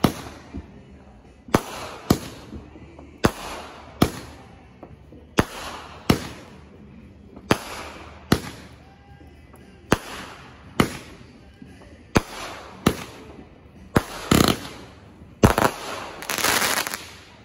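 Aerial fireworks going off in quick succession: sharp bangs, mostly in pairs about two seconds apart. Near the end comes a louder, longer stretch of crackling as a gold crackle burst breaks.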